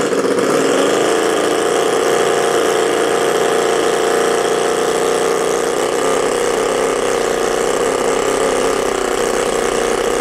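Enjomor 78cc DOHC miniature V8 gasoline engine running flat out in a maximum-RPM test. Its high, buzzing note climbs in the first second as the revs rise, then holds steady near the top of its range.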